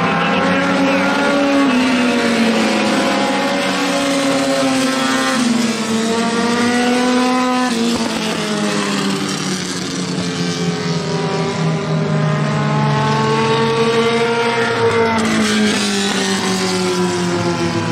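Several four-cylinder Super 4 dirt-track race cars running laps together. Their engine notes overlap and rise and fall, the pitch shifting several times as the cars go around.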